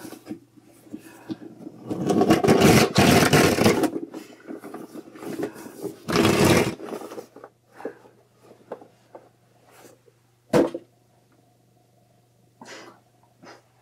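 A large yellow inflatable squeezed so the air rushes out in two loud, raspy blasts, a long one about two seconds in and a shorter one about six seconds in, passing for a fart. A sharp knock about ten and a half seconds in, and a couple of short fainter rasps near the end.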